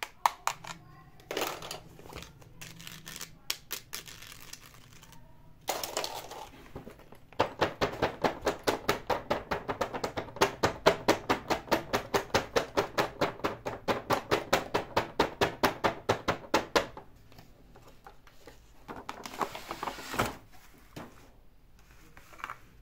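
Fingers tapping rapidly and evenly on the front of a boxed doll's package, about four to five taps a second for some ten seconds, the loudest sound here. Before it come a few scattered clicks and handling rustles, and near the end the cardboard box rustles as it is opened.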